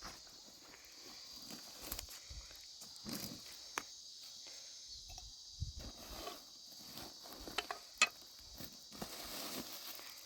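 Insects chirring steadily in the background, with scattered light clicks and knocks of something being handled and one sharper click about eight seconds in.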